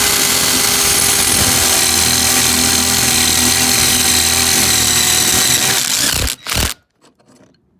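Power drill running at a steady, high speed, opening a hole up with a 1/4-inch bit. It stops about six seconds in, with one short burst just after.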